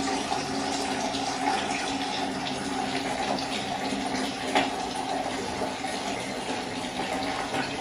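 Water running steadily from a tap in a small tiled bathroom, with one brief knock about four and a half seconds in.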